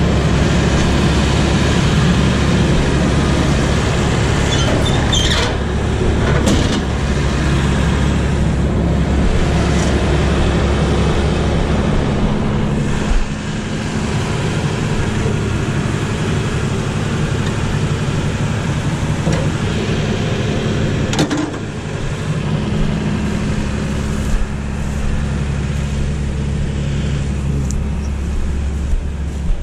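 Claas Dominator Mega 208 combine harvester's diesel engine running steadily close by, with a few sharp knocks from the header being handled.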